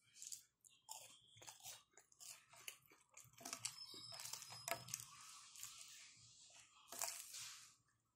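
Chewing and crunching while eating fried vegetable donuts (garay) with peanut chutney: irregular crisp crunches and wet chewing, the loudest crunch near the end.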